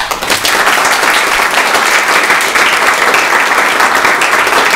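Audience applauding, starting abruptly and holding steady: many hands clapping at the end of a lecture.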